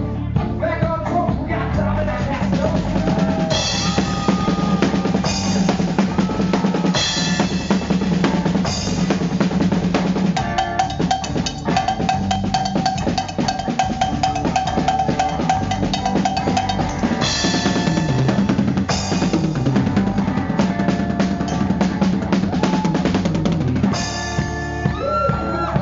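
Rock band music led by a drum kit playing busy kick, snare and cymbal patterns with fills, over bass and sustained guitar notes.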